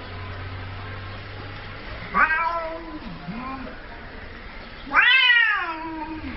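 A cat meowing twice: a short meow about two seconds in, then a longer, drawn-out meow about five seconds in that slides down in pitch.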